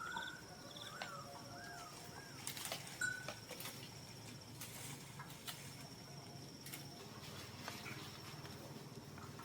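Quiet rural ambience: a few short warbling chirps in the first second or so, a steady thin high-pitched whine, and scattered light clicks.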